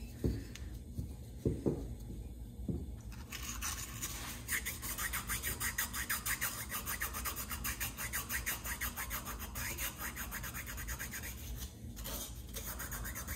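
Sandpaper scrubbing back and forth inside a chainsaw's cylinder bore, rubbing off aluminum deposits smeared onto the wall by the scored piston. A few dull knocks come first as the cylinder is handled. Then quick, steady rhythmic strokes start about three seconds in, with a brief pause near the end.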